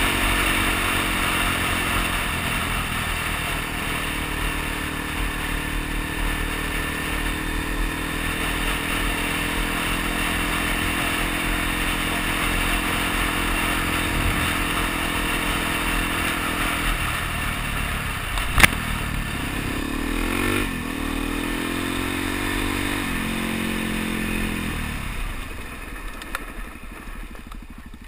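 Suzuki DR-Z dual-sport motorcycle's single-cylinder four-stroke engine running at a steady cruise under the rush of wind over a helmet-mounted camera. About two-thirds in the engine pitch dips and rises several times, with one sharp click, and near the end the engine sound falls away.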